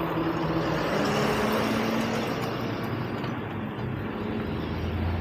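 Road traffic: vehicle engines humming at steady pitches that shift as they pass, over a constant rush of noise.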